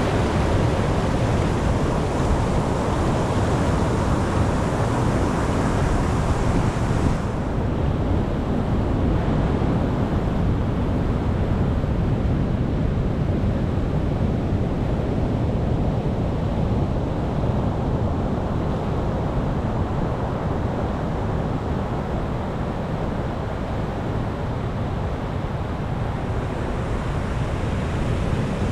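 Ocean waves and surf washing continuously, heaviest in the low end. About seven seconds in, the higher hiss drops away suddenly, leaving a duller wash.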